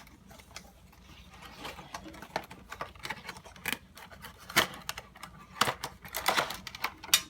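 Packaging being handled and opened by hand: irregular clicks, taps and short spells of rustling and scraping.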